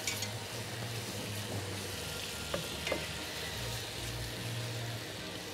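Strawberries sizzling in butter and sugar in a pan: a steady frying hiss with a few light clicks of a utensil.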